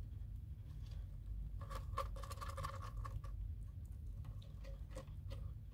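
Light scratching and rustling with scattered small clicks, from Netherland Dwarf kits moving about in their nest bedding, over a faint steady low hum. A faint tone sounds for about a second and a half, starting just under two seconds in.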